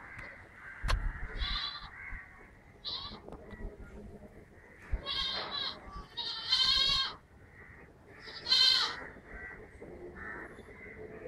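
A goat bleating about five times, short wavering calls with a longer one in the middle, with a sharp knock about a second in.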